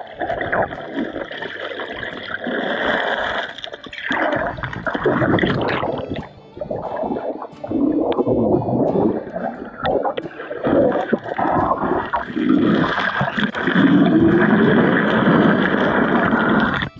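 Water churning and bubbling around a camera held under the creek surface as swimmers move close by, coming in loud, uneven surges.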